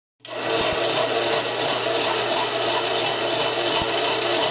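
Vintage Japanese Crystal electric toy sewing machine running, its small motor and needle mechanism making a steady mechanical rattle over a low hum. It starts suddenly just after the beginning.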